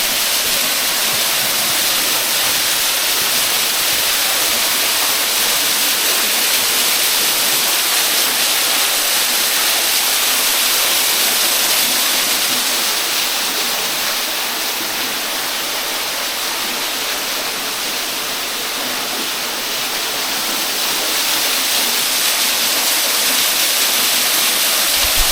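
Small waterfall splashing and rushing steadily, an even wash of water noise strongest in the higher tones.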